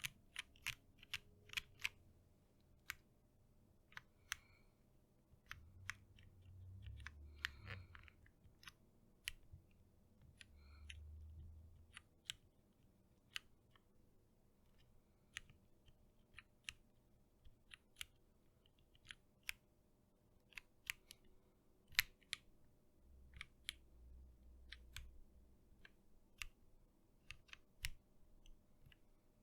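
Typing on an Ingot TKL custom mechanical keyboard with lubed Cherry MX Hyperglide Black linear switches in a top-mounted aluminum plate: separate, uneven keystrokes, a few a second, one louder key press a little past two-thirds of the way through.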